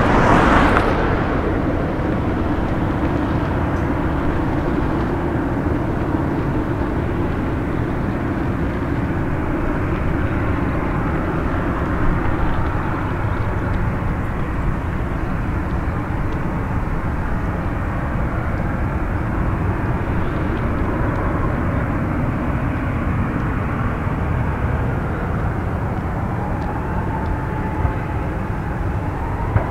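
Boeing 737-800's CFM56-7B turbofan engines running steadily at low thrust, a constant jet rumble with a faint whine. Near the end a whine rises in pitch as the engines spool up for take-off.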